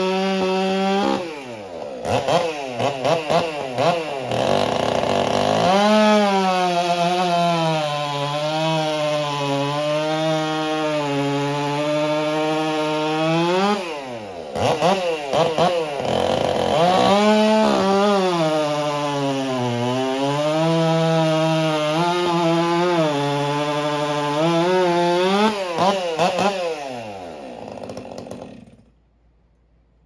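Large two-stroke gas chainsaw at full throttle cutting through a firewood log. There are two long cuts, and in each the engine pitch sags and recovers under the load. Between them the saw is blipped, and near the end it winds down and stops.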